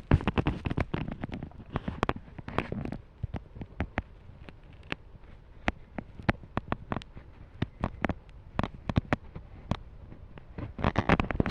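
Irregular sharp clicks and knocks from a fidget spinner being handled and spun. The clicks are dense at first, sparse in the middle and bunch up again near the end.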